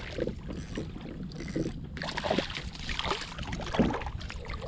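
Water splashing and sloshing beside a kayak, in short bursts, as a hooked sweetlip thrashes at the surface while it is brought to the hull.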